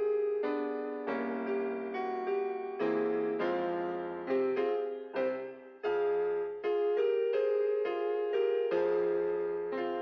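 Keyboard music: a slow succession of struck notes and chords, each starting sharply and fading, changing about every half second to a second.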